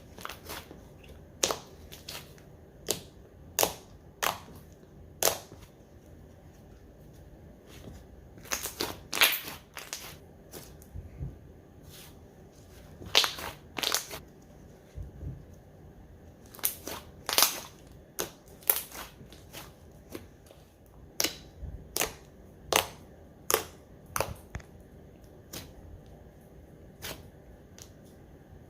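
Slime being squished and pressed by hand, giving sharp pops and clicks at irregular intervals, some in quick clusters.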